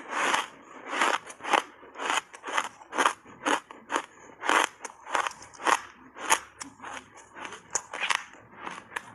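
Ice coated in matcha powder being chewed: a run of sharp, crisp crunches, about two a second, as a mouthful of ice is broken up between the teeth.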